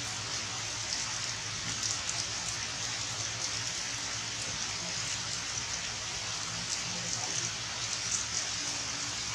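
Steady rain falling on forest leaves and rocks, a continuous hiss with scattered drop ticks.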